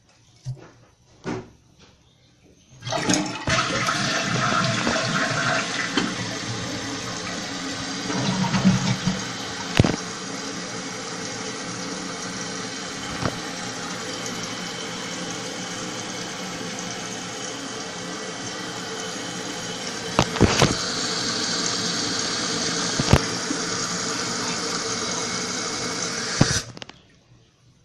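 Eljer Savoy toilet being flushed: a few light clicks, then about three seconds in the flush starts suddenly and water rushes steadily as the tank refills, with a few knocks along the way. The water stops abruptly near the end as the tank finishes filling.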